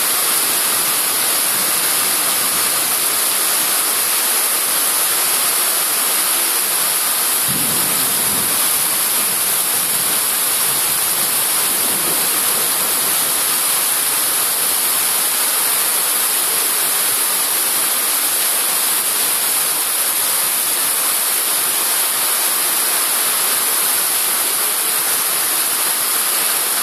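Heavy thunderstorm rain pouring down in a steady loud hiss, with a brief low rumble about seven seconds in.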